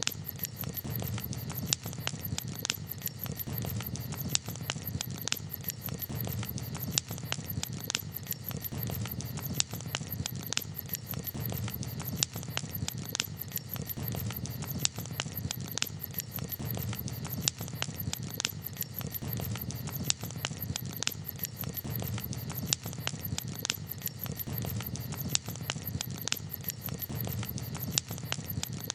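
Campfire crackling: irregular sharp pops and snaps, several a second, over a low steady rumble.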